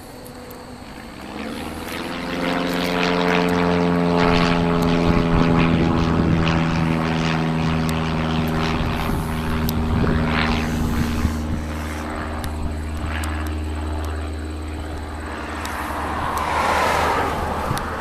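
A passing engine drone, building up about two seconds in, holding steady with a low hum beneath it, then fading; near the end a short rushing noise.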